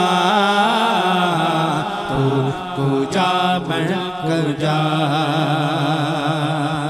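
A male naat singer holding long, wavering, ornamented notes into a microphone, over a steady low drone.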